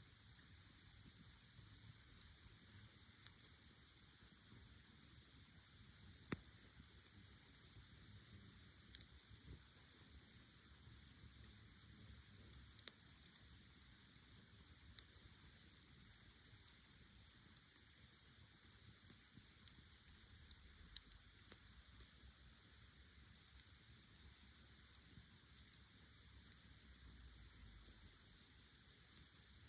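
A steady, high-pitched chorus of night-singing insects such as crickets, with a few faint crackles from a campfire scattered through it.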